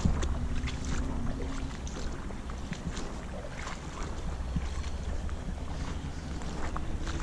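Footsteps wading through a shallow, sandy-bottomed creek: water sloshing and splashing around the legs with each stride, over a steady low rumble.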